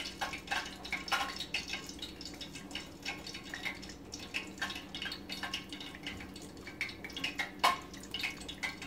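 Wet, floured chicken pieces dipped in a water and baking powder mixture and dredged in flour by hand, giving many small irregular drips and light pats over a steady low hum.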